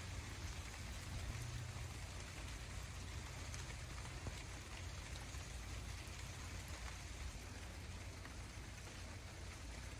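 Steady rain falling, an even noise with faint scattered ticks and a low rumble underneath.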